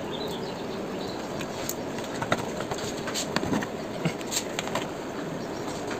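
Plastic motorcycle fairing panel being handled and pried loose, with scattered light clicks and taps over a steady background hiss.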